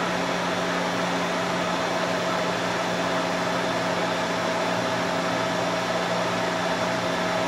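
Three-phase electric motor of the milling machine running unloaded with its belts off, a steady hum over an even rush. It is running on single-phase power through a variable-frequency drive while its speed is checked and set at about 1750 rpm.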